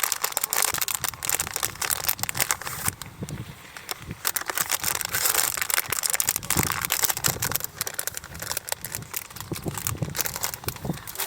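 Continuous crinkling and rustling: a dense stream of small crackles, like something being crumpled or handled.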